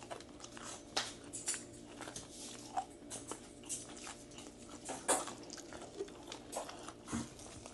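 Close-up chewing of crispy fried naem (Thai fermented sour meat), with irregular small crunches and mouth clicks, the loudest crunch about five seconds in.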